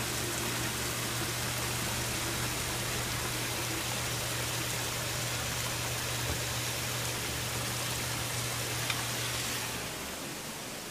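Aerated live-bait tank: water rushing and bubbling steadily over a constant low hum. The sound falls off a little under ten seconds in.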